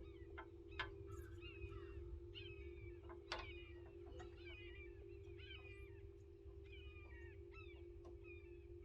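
Birds calling in many short, quick falling chirps over a faint steady hum and low rumble.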